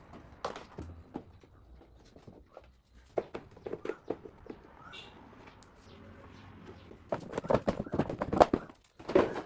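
Scattered clicks and knocks of tools and plastic fairing panels as the visor and headlamp shield are unfastened and taken off a scooter, with a dense run of rapid clicking and rattling near the end.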